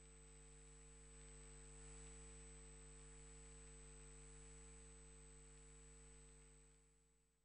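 Near silence: only a faint steady electrical hum with a thin high whine and light hiss, fading out near the end. No blast is heard.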